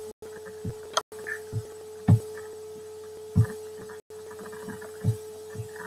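A steady electrical hum from the recording chain, broken by several short, low thumps at irregular intervals. The audio cuts out for an instant three times.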